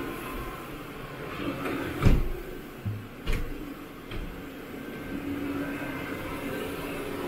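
Carpet-cleaning equipment running with a steady hum, with two sharp knocks about two and three and a half seconds in and a few lighter clicks.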